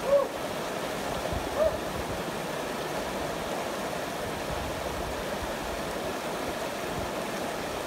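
Fast mountain creek rushing over rocks in a steady, even roar of water. Two brief pitched sounds rise above it, one right at the start and one about a second and a half in.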